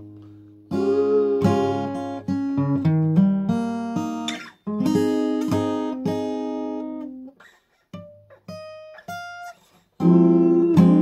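Acoustic guitar strumming chords that ring out between strokes. About seven seconds in, the strumming stops for a moment, a few single high notes are plucked, and a loud strummed chord comes in again near the end.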